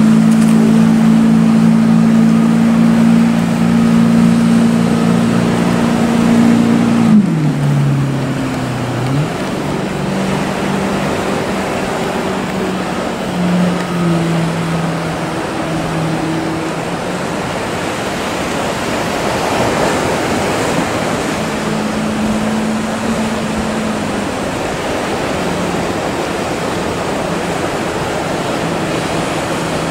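Small motorboats' engines running over steady surf and rushing water. The engine hum is strong and even at first, dips sharply in pitch and comes back about seven to nine seconds in, then carries on fainter under the sea noise.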